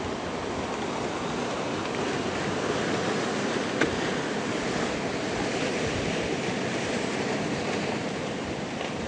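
Steady rushing noise of wind and lake water, with one short faint click about four seconds in.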